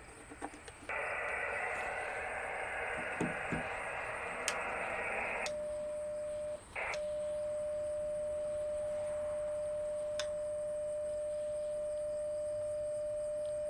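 Ham radio transceiver's speaker giving a steady hiss of 20-metre band noise while the antenna tuner is being adjusted. About five and a half seconds in this gives way to a steady single-pitch CW sidetone as a carrier is keyed for tuning. The tone breaks off briefly about a second later, then holds on.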